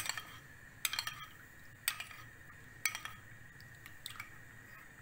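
A utensil clinking against a container about five times, roughly once a second, as flour is stirred into water to make the slurry that thickens the harira.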